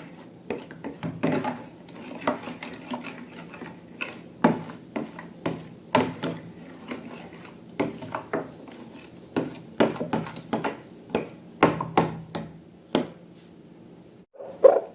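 Irregular clicks and scraping taps of a utensil against a bowl while slime is mixed, a few sharp knocks a second.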